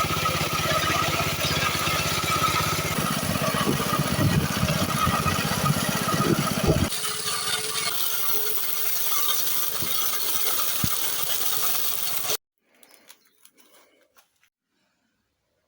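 Walk-behind tractor (motoblock) running with its grass-mowing attachment, a steady mechanical engine sound. The low rumble thins about seven seconds in, and the sound cuts off abruptly about twelve seconds in, leaving only a few faint clicks.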